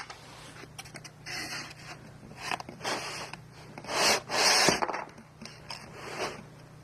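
Cardboard box and packing rubbing and scraping in a run of irregular rustles as a heavy battery backup unit is worked out of its box; the loudest scrape comes about four seconds in.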